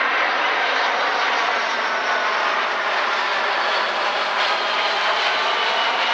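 Jet engines of a Boeing 757-300 airliner on landing approach, passing low overhead with gear down: a steady, loud rush of jet noise, with a faint high whine showing near the end.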